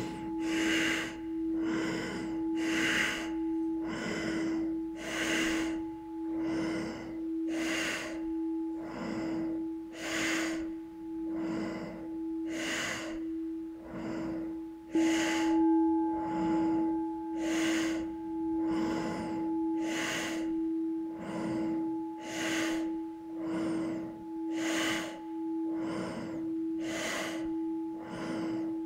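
Quick, deep breaths in and out through the nose, about one a second, over the steady ringing tone of a singing bowl. About halfway through the bowl is struck again and rings louder.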